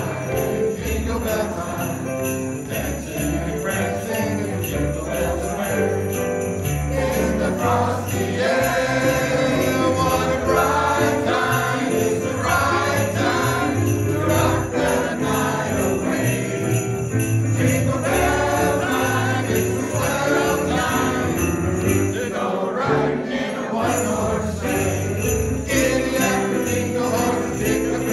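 Man and boy singing an upbeat Christmas pop song into microphones over a band accompaniment with jingle bells and a steady bass line.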